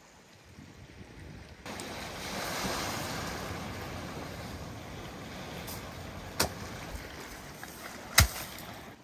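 Small waves washing on a pebble shore, coming in suddenly about two seconds in, with two sharp knocks over them. The second and louder knock, near the end, comes as a wooden log is stood down on the rocks.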